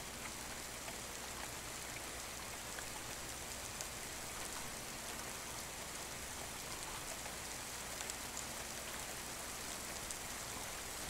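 A steady hiss with faint scattered ticks, like rain falling on a surface.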